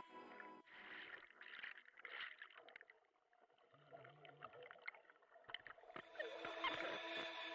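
Very faint splashing and bubbling of water from a camera plunged into a pool, with a moment of near silence partway through.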